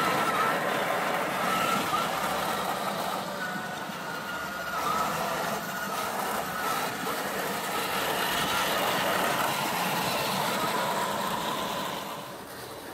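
Electric drive motors and gearboxes of a 1/6-scale RC M5 Stuart tank whining as it drives, with its tracks crunching over gravel. The whine wavers in pitch and the sound drops away near the end as the tank moves off.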